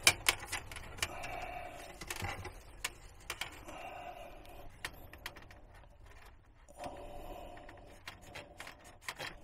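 Scattered light clicks and taps of a metal tape measure and pencil being handled while measuring and marking inside a wooden cabinet opening, with soft rustling between them.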